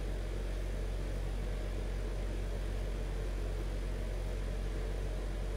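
Steady background room noise: a constant low hum with an even hiss over it, unchanging and with no distinct event.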